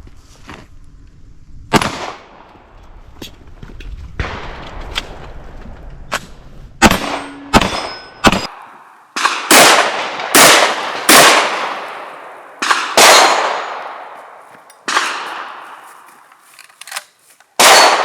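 A string of gunshots on an outdoor range, each with a long fading tail. The shots are fainter and scattered in the first half, with brief metallic ringing about seven seconds in, then come loud and regular, about one a second, through the second half.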